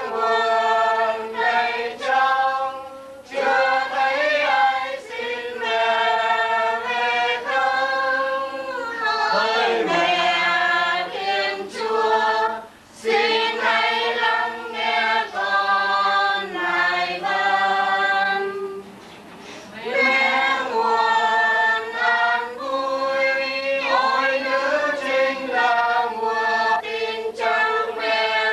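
A group of voices singing a hymn together in sustained, slow phrases, with brief pauses between verses about 13 and 19 seconds in.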